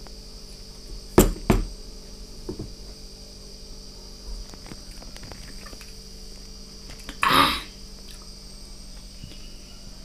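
Two sharp knocks about a second in as the stainless-steel mixer-grinder jar and spoon are handled, then a short loud hiss of breath sucked in through the mouth while tasting the green mango chutney. Steady cricket chirping runs underneath.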